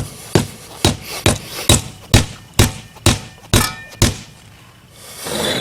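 Rubber mallet pounding pavers down into a sand and Portland cement bedding, a steady run of dull thuds about two a second that stops about four seconds in. A brief rising scraping noise follows near the end.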